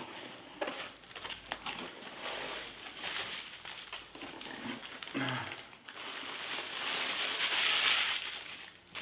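Packaging rustling and crinkling as a small cardboard box is opened and unpacked by hand, with a few light clicks; it grows loudest near the end.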